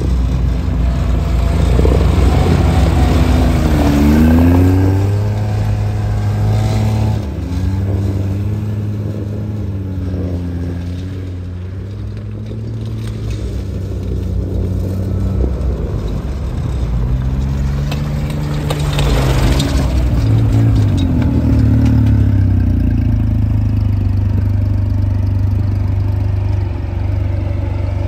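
Tinger 380 tracked amphibious ATV being driven, its three-cylinder petrol engine running with the engine speed rising and falling as it manoeuvres. It revs up sharply about four seconds in and again about nineteen seconds in.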